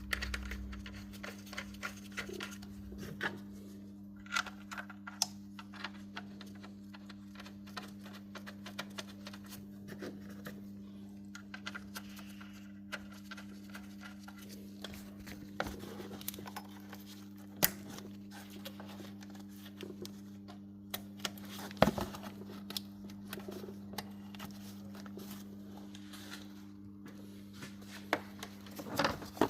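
Scattered light clicks, taps and knocks of tools and metal parts being handled, with a sharper knock now and then, over a steady low hum.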